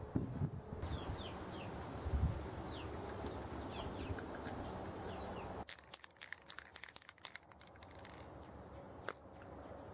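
Masking tape pulled from the roll and torn while a brake caliper and rag are handled on a workbench, with short squeaky strips of sound and a couple of low knocks. About halfway through it cuts to a quieter outdoor background with scattered faint clicks.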